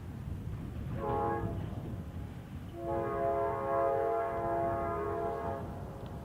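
Amtrak GE P42 locomotive's K5LA five-chime air horn sounding a short blast, then a long one of about three seconds, over a low rumble. This is the horn signal for the road crossings.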